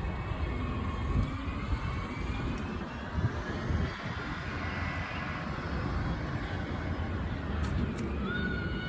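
A steady low rumble of distant engine noise in the open air. A faint whine rises and falls midway, and a thin steady tone comes in near the end.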